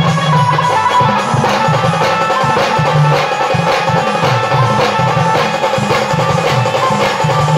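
Live band music played loud: a melody line over steady, driving drumming.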